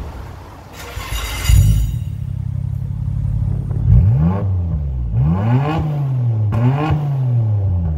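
Nissan R33 Skyline with a Trust titanium exhaust starting up about a second and a half in, then revved three times, the exhaust note rising and falling with each blip.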